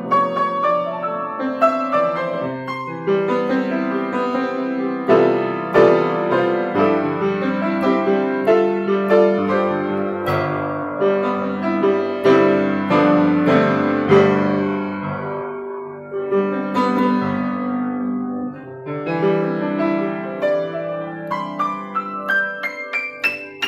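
Kawai GL-40 grand piano played as a solo: a melody over held chords, with a short quick run of rising notes near the end.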